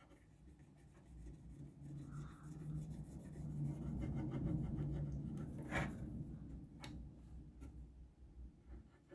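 Rubbing and scraping as the console's circuit board is handled and turned on the workbench, swelling and then fading, with a sharp click about six seconds in and a lighter one a second later.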